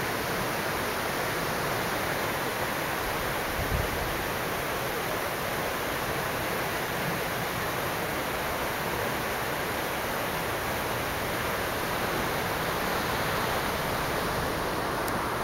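Steady rushing outdoor noise with no distinct bird calls, and a brief low thump about four seconds in.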